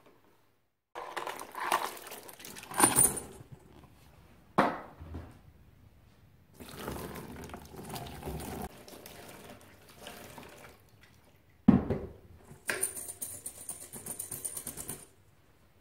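Liquid poured from a plastic tub into a wire-mesh strainer, then water poured from a kettle over small steel parts (a spring, circlips and washers) lying in the strainer, rinsing them. Sharp knocks a couple of times, and near the end the small metal parts rattle and clink in the mesh as the strainer is tilted.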